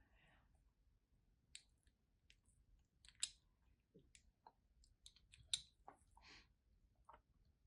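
Faint, irregular crisp clicks and crackles of soap being crushed, with two sharper snaps about three and five and a half seconds in.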